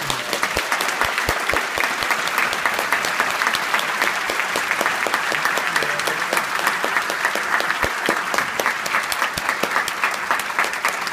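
Large concert-hall audience applauding, a dense, steady clapping.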